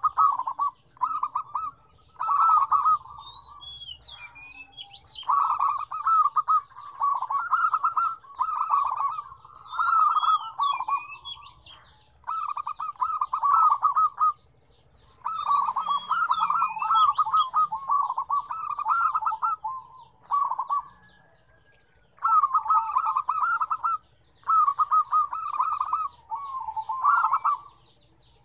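Zebra doves (perkutut) cooing: phrases of about a second made of rapid, stuttering notes, repeated one after another with short gaps, some of them overlapping.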